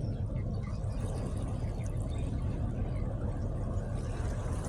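Steady low rumble of a boat's engine, with water washing and splashing over it.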